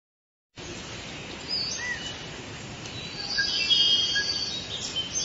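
Nature ambience of birds chirping and whistling over a steady hiss of forest background noise, starting about half a second in.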